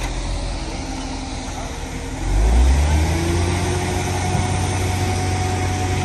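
An engine running, revving up about two seconds in and then holding at the higher speed.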